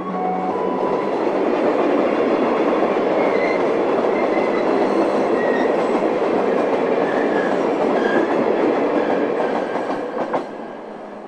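Iwate Kaihatsu Railway limestone freight train of hopper wagons rolling past at close range, a loud steady noise of wheels running on the rails. The noise drops away near the end as the last wagon passes.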